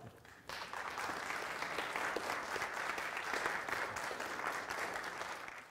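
Audience applause, starting about half a second in and fading out near the end.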